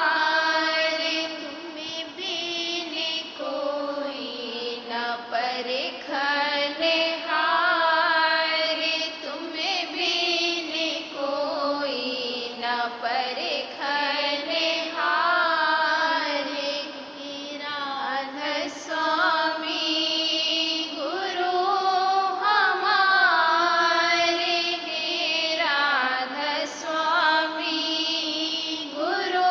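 A Radhasoami devotional hymn (shabd) sung as a continuous melodic chant, the voice gliding between held notes, with no clear drumbeat.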